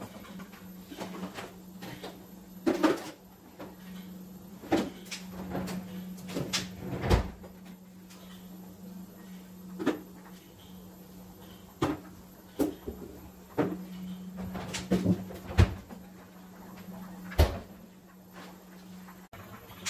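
Kitchen handling sounds: a dozen or so separate knocks and clunks as a refrigerator door and drawers are opened and closed and vegetables are set down on a granite countertop, with a plastic bag rustling, over a steady low hum.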